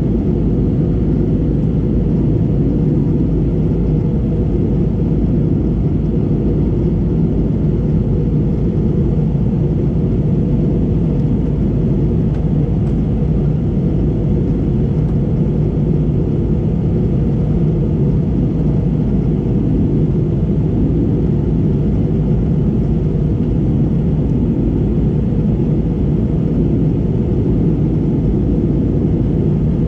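Steady low cabin rumble of an Airbus A320neo in flight, heard from a window seat: airflow over the fuselage and its Pratt & Whitney PW1100G geared turbofan engines, holding even with no change in pitch or level.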